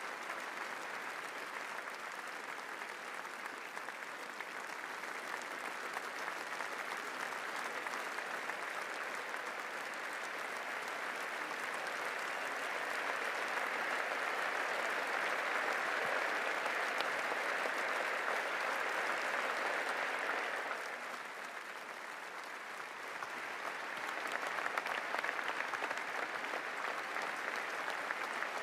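Large crowd applauding in a long, sustained ovation. It swells through the middle, dips briefly about two-thirds of the way in, then picks up again.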